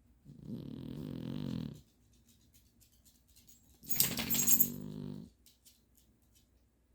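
A sleeping pet snoring: two long snores about three and a half seconds apart, each lasting about a second and a half, the second louder with a rattle at its start.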